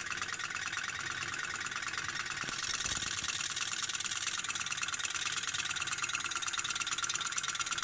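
Small glass-tube Stirling engine running on an alcohol-lamp flame, its flywheel and piston linkage giving a fast, steady run of light mechanical clicks. It gets a little louder about two and a half seconds in.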